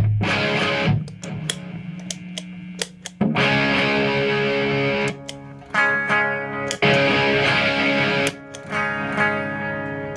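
Epiphone Les Paul electric guitar played through a Marshall JCM2000 TSL 60 valve amp switched to its lead channel: chords and notes left to ring, with short breaks between them.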